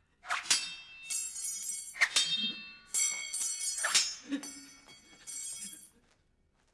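Katana blades clashing: a series of sharp metallic strikes about a second apart, each ringing on like a bell, as one sword is chopped down piece by piece to its hilt.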